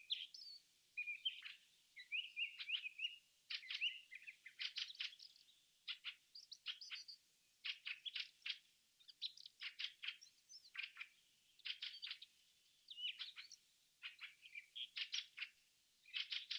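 Faint wild birdsong: many short, high chirps and trills in quick clusters with brief pauses.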